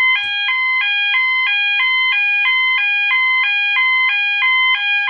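Electronic fire alarm sounder on its high-low tone, alternating between two pitches about twice a second, with a Wheelock MT multitone sounder on its bell tone running alongside. The high-low alarm is the dominant sound and is described as so loud.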